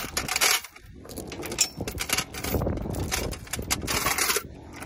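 A 3/8-inch grade 8 steel chain clinking and rattling in quick, uneven clinks as it is fed link by link into a steel 30-cal ammo can and coils up inside.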